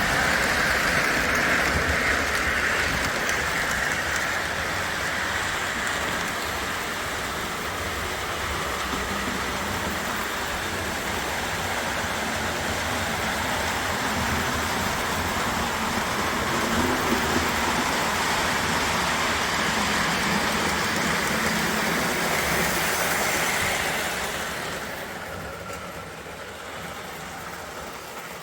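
O gauge model train running on three-rail track, its wheels rolling with a steady clattering rumble that grows quieter near the end as it moves away.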